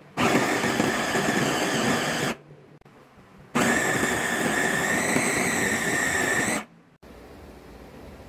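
Electric food chopper, its motor head on a glass bowl, run in two bursts of about two and three seconds to mince cubed raw meat. The motor whines steadily, rising slightly in pitch partway through the second burst, and stops abruptly each time.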